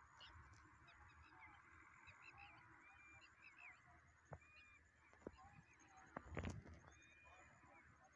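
Faint bird calls, many short chirps, with a few soft clicks and a louder knock about six and a half seconds in.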